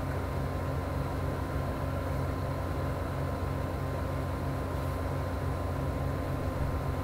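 Steady low background hum and hiss with a faint whine held at one pitch, unchanging throughout; no speech.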